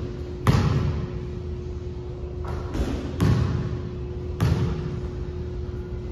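Basketball thudding on the gym floor and being caught and shot, each hit echoing around the large hall: four sharp hits, one about half a second in, two close together near three seconds, and one at about four and a half seconds. A steady low hum runs underneath.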